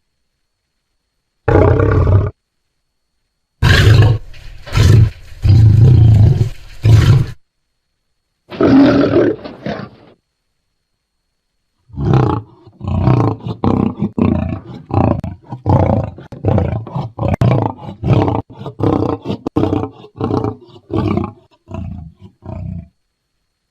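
African lion roaring: a short roar, then a group of about four loud roars and another single roar, each separated by dead silence. After that comes a long run of short roars, about two a second, fading away near the end.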